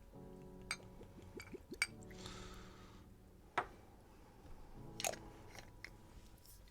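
Quiet handling of a vodka bottle and glass: several sharp clicks and knocks, and a short hiss about two seconds in, over faint background music.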